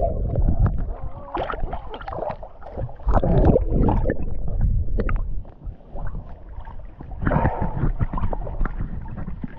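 Lake water sloshing and splashing in irregular bursts, with wind rumbling on the microphone.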